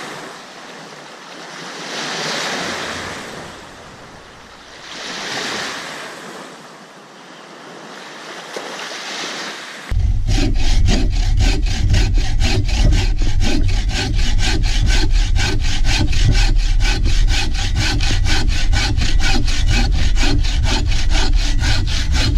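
Small lake waves washing onto the shore, swelling and falling about every three seconds. Then, about ten seconds in, a sudden change to a handheld bow saw cutting through a dry log with steady, rapid back-and-forth strokes, the loudest sound.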